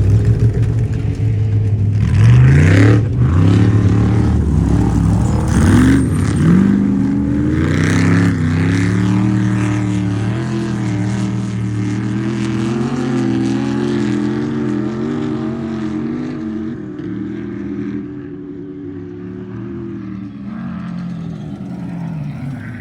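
An off-road race vehicle's engine revving hard in several rising pulls as it goes by close, then running at a steady pitch while it fades into the distance.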